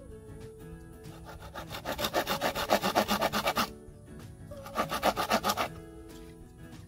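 Hand pruning saw cutting across a green bamboo pole in quick back-and-forth strokes: a run of about two seconds, a short pause, then a shorter run of about a second as it cuts through. Background music plays underneath.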